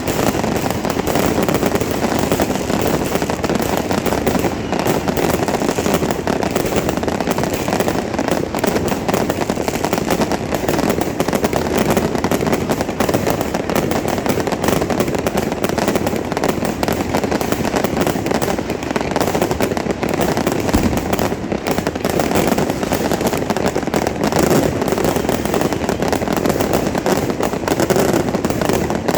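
Fireworks and firecrackers going off in a dense, unbroken crackle of rapid pops.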